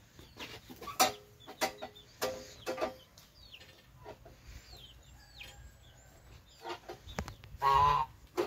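Chickens clucking in short, separate calls, with faint high falling chirps midway and one louder, longer call near the end. The silage cutter's motor is not running yet.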